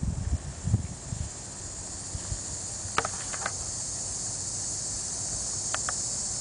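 Steady high hiss of insects. There are low rustling thuds in the first second or so, and a few brief clicks about three seconds in and again near the end.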